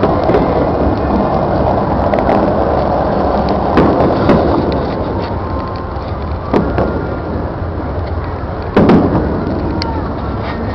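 Aerial fireworks going off overhead: about four sharp booms, the loudest one late on. Under them is the steady rushing hiss of the Bellagio fountain's water jets.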